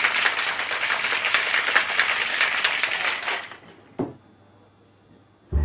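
Ice rattling hard in a metal cocktail shaker being shaken, stopping about three and a half seconds in. A single sharp knock follows about a second later.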